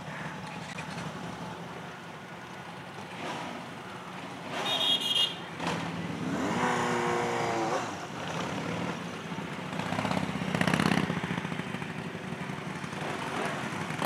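Motorcycle engines running at idle, with one engine note falling in pitch between about six and eight seconds in.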